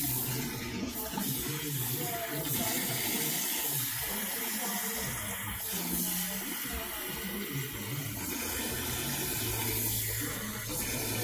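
Water running steadily from a salon shampoo sink's hand-held spray hose, splashing through wet hair into the basin as the shampoo is rinsed out.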